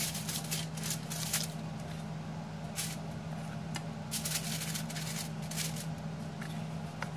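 Clear plastic gloves and aluminium foil crinkling in short, irregular rustles as small fish are handled and laid on a foil-lined baking tray, over a steady low hum.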